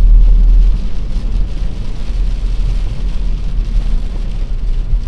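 Car cabin while driving in rain: steady low rumble of the road and engine under a hiss of rain on the windshield. The rumble is loudest in the first second.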